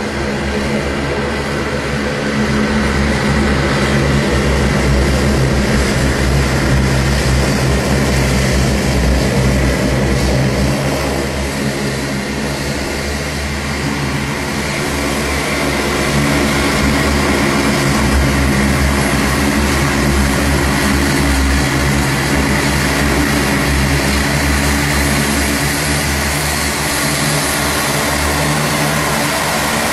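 Propeller engines of a high-wing turboprop transport aircraft running as it taxis: a loud, steady drone with a constant low hum, easing slightly about twelve seconds in before rising again.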